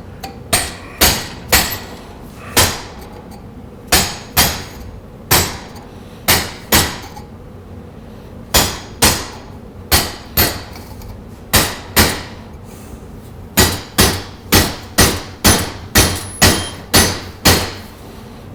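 Hammer striking a piece of metal about two dozen times at an uneven pace, with a short pause around the middle, each blow ringing briefly, as the metal is beaten over into a right-angle bend.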